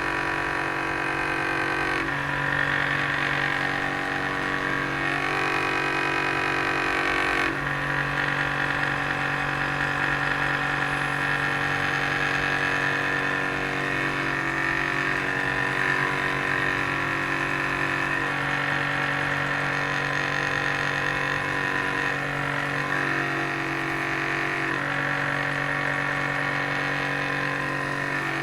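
Benchtop drill press motor running steadily, spinning a wooden chisel handle that is being turned on it like a lathe. Its hum and the noise above it shift abruptly a few times as the work changes.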